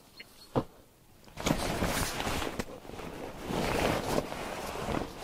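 Rustling of clothing being handled and folded, in two swells lasting a few seconds, after a single short click.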